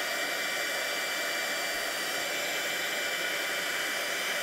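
Handheld craft heat gun blowing steadily: a rush of hot air with a high motor whine. It is heating gold embossing powder to melt it.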